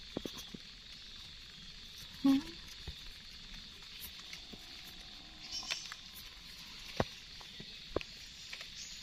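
Knife blade scraping into forest soil and dry leaf litter while digging out a mushroom, with soft rustling and scattered light clicks and taps.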